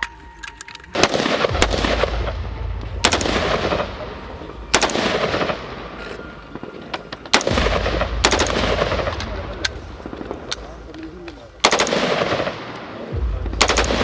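Colt M4 carbine firing 5.56x45mm NATO: about eight shots or short strings of shots, irregularly spaced, each followed by a long rolling echo.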